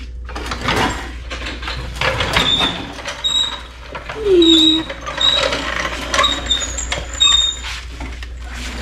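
Metal clanks and knocks with short high squeaks, repeated several times, as a VW Bay Window bus engine is pried loose and worked out of the bus with a steel bar.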